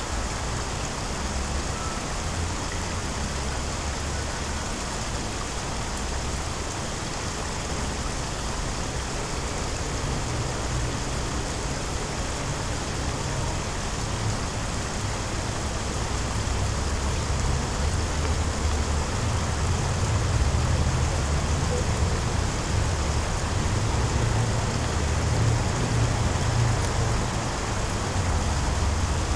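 Steady outdoor background noise: an even hiss with an uneven low rumble underneath, a little louder in the second half.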